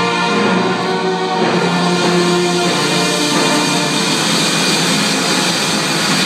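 Brass band playing: held chords for the first few seconds, then a denser, louder-sounding passage in which a steady noisy wash covers the band.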